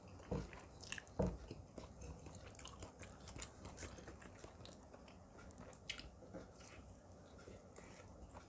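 Close-miked chewing and wet mouth sounds of a person eating, with many small clicks throughout and two louder low thumps in the first second and a half.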